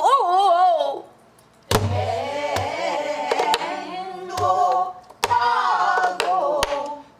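A woman singing pansori in a husky, wavering voice, stopping twice for breath, while accompanying herself on a buk barrel drum: several sharp stick strokes and a few low hits on the drum.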